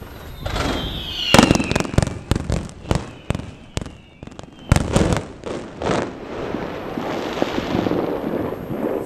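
Fireworks going off: a rapid volley of sharp bangs with falling whistles, giving way near the end to a dense crackling hiss.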